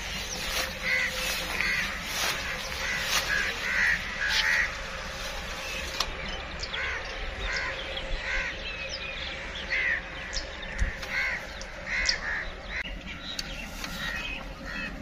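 Crows cawing, many short calls repeated throughout, some close together.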